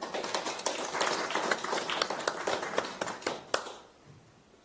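A small congregation applauding, a dense patter of hand claps that fades away after about three and a half seconds.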